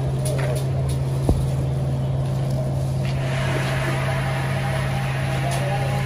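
A steady low motor hum throughout, with a single sharp knock about a second in. From about halfway a hiss joins it: dry sand pouring from a plastic bag into a plastic bucket.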